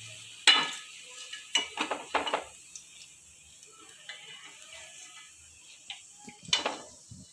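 Wire spider skimmer clinking and scraping against a metal kadai as deep-fried cauliflower fritters are lifted out of the oil, with the hot oil sizzling faintly underneath. There is a sharp clink about half a second in, a quick cluster of clinks around two seconds, and another clatter near the end.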